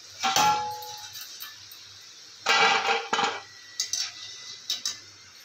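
Wire frying skimmer clanking and scraping against a steel kadhai as fried namak pare are scooped out of the oil. There is a ringing clang just after the start, a longer clatter about two and a half seconds in, then a few lighter taps.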